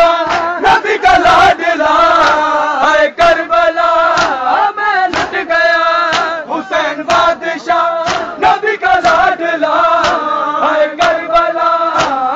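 A crowd of men chanting a Shia noha lamenting Imam Husain in loud unison, punctuated by the sharp slaps of bare-handed chest-beating (matam).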